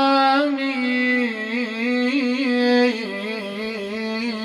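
A man's voice chanting a line of Shia Muharram elegy poetry in the drawn-out melodic style of majlis recitation, holding one long wavering note with ornaments that steps down in pitch about three seconds in.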